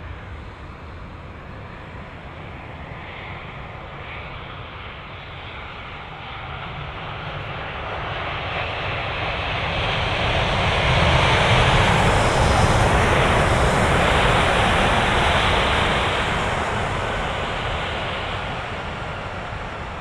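Airliner passing close by: its engine roar swells, peaks a little past halfway, and then fades away.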